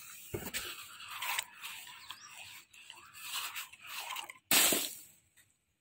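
A sandy hand rubbing and pressing over an inflated rubber balloon: a string of irregular scraping, crunchy rubs, with one louder burst of noise about four and a half seconds in.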